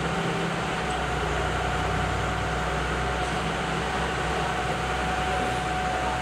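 Excavator's diesel engine running steadily, with a thin steady whine over the low engine hum.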